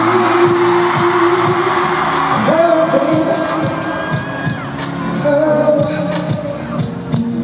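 Live K-pop performance: a male singer holding long notes into a headset microphone over a band with a steady beat, one note rising in pitch about two and a half seconds in. The audience screams and cheers near the start.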